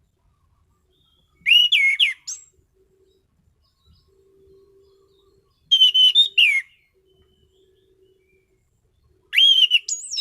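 An anis cendana thrush singing: three short, loud phrases of sliding whistled notes, about four seconds apart. A faint steady hum runs between the phrases.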